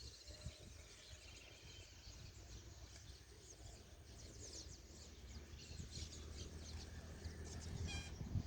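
Faint chirping of small birds: many short, high calls, busiest in the middle, with a quick rattling trill about eight seconds in, over a low steady rumble that grows louder toward the end.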